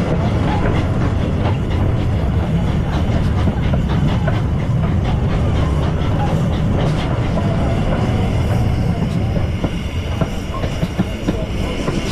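Stephenson's Rocket replica steam locomotive under way, heard from the tender just behind it: a loud, steady rumble of wheels on rail with scattered clicks.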